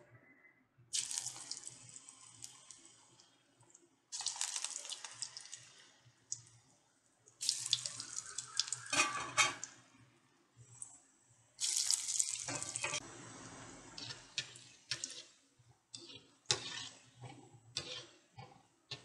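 Hot oil in a kadai sizzling as snake gourd kola balls are deep-fried, in four loud bursts that each start suddenly as a ball goes in and fade over a couple of seconds. Shorter, fainter crackles of frying follow near the end.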